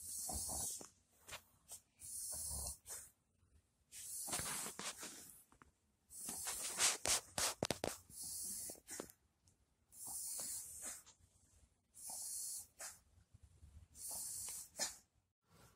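An elderly, dying Shiba Inu breathing with effort: short hissing breaths about every two seconds. From about six to nine seconds in there is a longer breath with sharp clicks.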